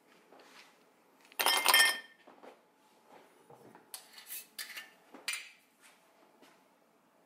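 Hard objects clinking: one loud clink with a ringing tone about a second and a half in, then a few shorter clatters.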